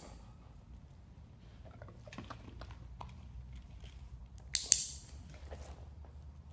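A dog-training clicker gives one sharp double click about four and a half seconds in, marking the dog's calm down. Around it are a few faint small clicks and handling sounds over a low steady hum.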